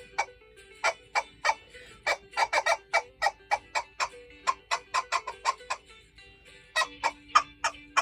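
Music with a quick, uneven clicking beat of short tapped notes over held low tones.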